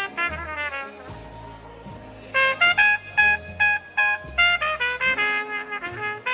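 Trumpet played with a Hawkins straight mute in a jazz number: a falling run of quick notes, a short lull, then a string of short, detached notes, over a bass line from the rhythm section.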